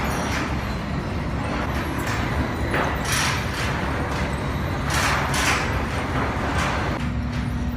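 Sawmill machinery running: a steady low rumble with short rushing noises every half second to a second or so, and a steady hum that comes in near the end.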